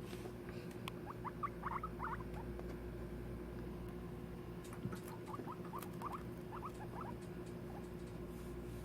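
Guinea pigs making short, soft squeaks in quick clusters, one group about a second in and another around six seconds in, with light ticks of movement over a steady low hum.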